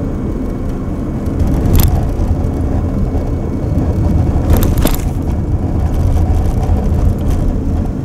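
Steady low road and engine rumble heard inside a moving car, with a few brief knocks about two seconds in and again around five seconds in.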